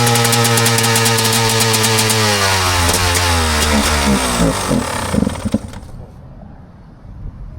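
Enduro dirt-bike engine running at a steady idle, then about two seconds in its revs sag and stumble until it stalls and dies about five and a half seconds in.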